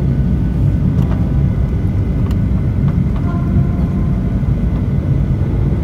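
Steady low drone of an airliner cabin in flight, the engines and airflow heard from a passenger seat during the descent, with a few faint ticks over it.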